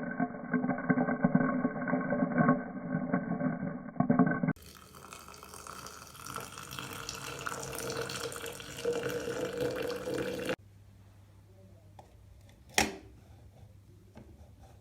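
Guitar music that cuts off after about four and a half seconds, then a steady rush of running water, like a tap into a sink, for about six seconds. Then quiet room tone with a single sharp click near the end.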